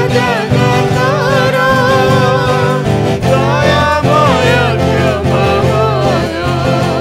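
A man and a woman singing an Odia Christian worship song together, accompanied by a strummed twelve-string acoustic guitar.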